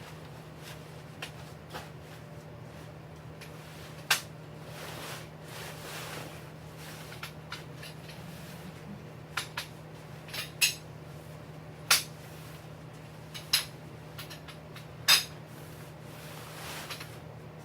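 Scattered sharp clacks and clinks of tent-pitching gear being handled, about seven loud ones, over a steady low hum.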